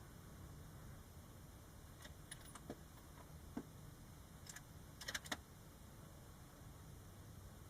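A series of light metallic clicks and rattles, about seven over three seconds with the last few close together, over a low steady rumble, as from the bolt of a custom 6.5 Creedmoor bolt-action rifle on a Stiller Tac30 action being worked between shots.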